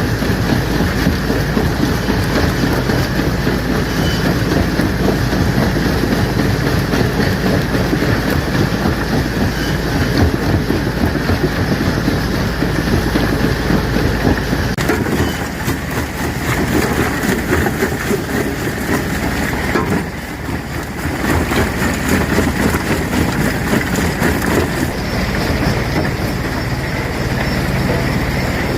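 Stone crusher machine running, with rocks rattling, grinding and cracking continuously. A low hum drops out about halfway through.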